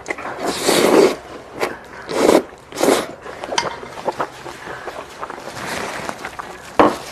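Close-up eating sounds of spicy jjolmyeon noodles being slurped from chopsticks: three loud slurps in the first three seconds, the first the longest, then quieter chewing with small clicks and scrapes, and one sharp knock near the end.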